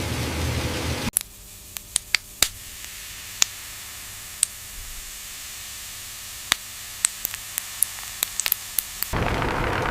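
Loud steady noise that cuts off abruptly about a second in. A low hiss follows, with about twenty sharp, irregular clicks that come faster toward the end. About nine seconds in, loud steady noise cuts back in.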